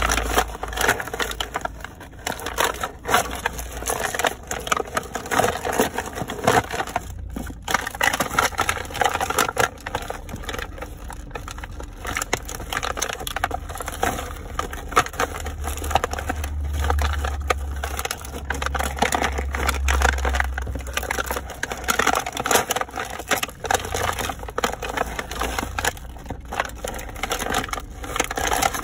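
A cardboard figure box and its clear plastic packaging being crushed under sneakers: continuous crunching and crinkling, with dense crackles as the foot stamps and grinds.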